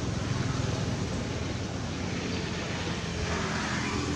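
Steady low rumble of distant engine noise, swelling briefly near the end.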